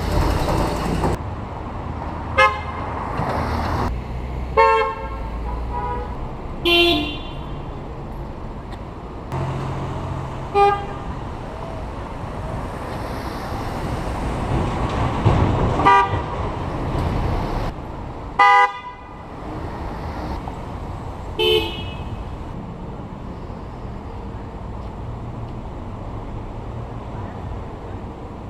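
Car horns honking as vehicles pass: about seven short honks of differing pitch, spaced several seconds apart, over steady road-traffic noise.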